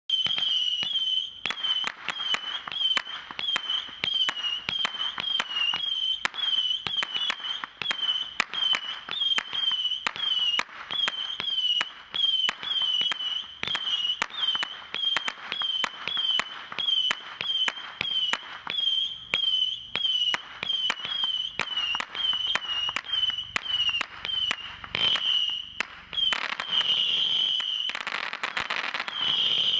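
Bright Star 'Screaming Wild Cat' firework firing a rapid string of short, high screaming whistles, about two a second, with sharp cracks among them. Near the end the whistles run longer and louder.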